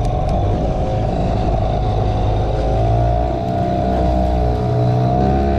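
A small fishing boat's motor running steadily under way, its pitch wavering slightly as the boat is steered.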